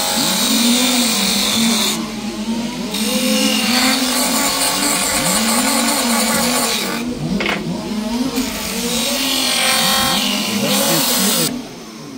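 Several 1:5 scale RC race cars with small two-stroke petrol engines lapping a track. Their engines rise and fall in pitch as they accelerate and brake, and the sounds overlap.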